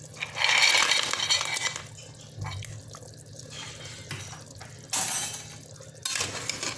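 Clams in their shells tipped into a pot, clattering and clinking against each other and the metal, with some wet splashing; three bouts of clatter, the first and longest about half a second in.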